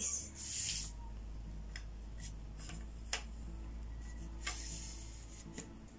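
Yunteng VCT-5208 phone tripod being handled as its legs are spread and its head adjusted: scattered clicks and rubbing of its parts, with a sharper click about three seconds in. A low steady hum runs underneath.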